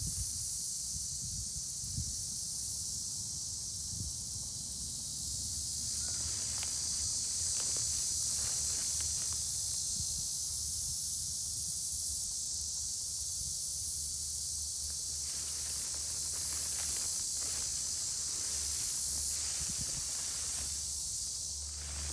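Footsteps swishing through tall dry prairie grass, with a steady high-pitched hiss over everything and a low rumble underneath.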